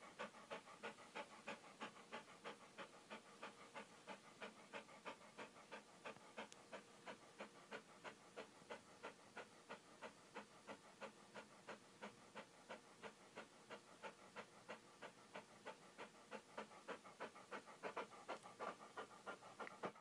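Siberian husky panting faintly and steadily, about three quick breaths a second.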